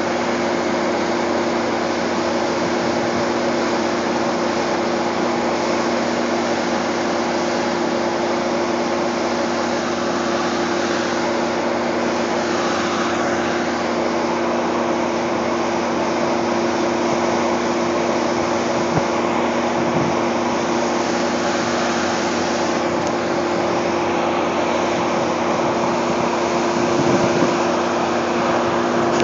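Steady mechanical hum of electric trains at a station, two steady low tones over a rushing noise, like train blowers and air-conditioning units running. It grows slightly louder near the end as a Metro-North M8 electric multiple-unit pulls in alongside.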